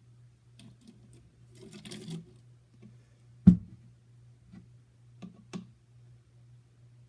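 Clicks and knocks of a vinegar bottle and measuring cup being handled while vinegar is poured into a water bottle, with one loud knock about three and a half seconds in, as of something set down hard. A steady low hum runs underneath.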